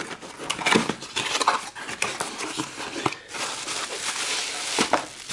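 Speaker packaging being handled and opened by hand: irregular rustling, scraping and small knocks.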